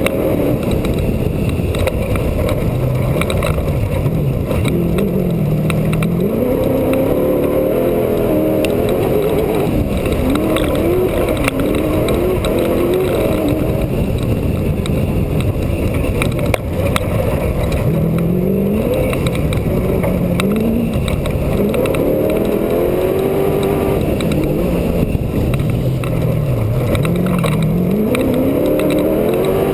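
Off-road race truck's engine at racing speed, its pitch climbing and dropping again and again as the throttle is opened and backed off, over a constant low rumble.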